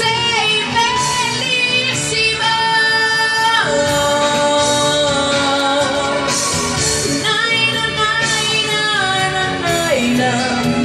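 A woman singing an Italian pop ballad live into a microphone over a karaoke backing track. She holds long, wavering notes that slide from pitch to pitch.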